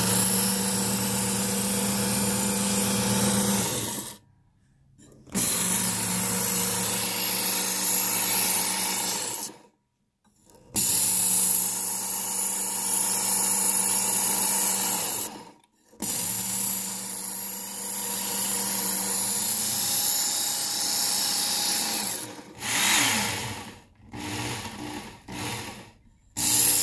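Work Sharp Ken Onion Edition sharpener's electric motor running a coarse abrasive belt that grinds a new edge onto a dull steel knife blade drawn through its guide: a steady motor hum with a grinding hiss. It cuts out several times and ends in a few short bursts.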